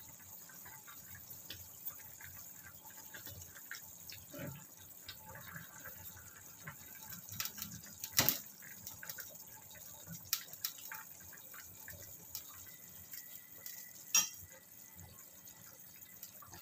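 Metal ladle stirring and scooping chicken-vegetable soup in a hammered metal saucepan, the broth sloshing quietly, with faint clicks and two sharp clinks of the ladle on the pot, about eight seconds in and again near fourteen seconds.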